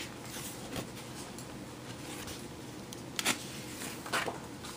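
A children's picture book being opened and its pages turned: soft paper rustling and handling, with a few short sharp flicks and taps.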